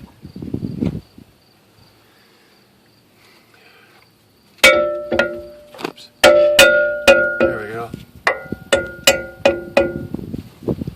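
A hammer tapping repeatedly on a seized brake part on a 1996 Ford F250's rear drum brake, knocking the wheel cylinder loose after its bolts are out. The light metal-on-metal strikes, 'love taps', ring briefly: first a few spaced blows about halfway through, then a quicker run of about a dozen.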